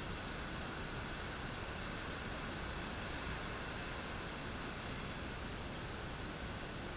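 Light rain falling steadily, an even soft hiss, with a high chirring above it that pulses in quick regular beats.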